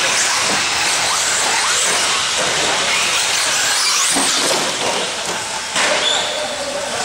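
Radio-controlled electric short-course trucks running on an indoor dirt track: motors whining up and down over a steady hiss of tyres and gravel, with a sudden louder burst about six seconds in.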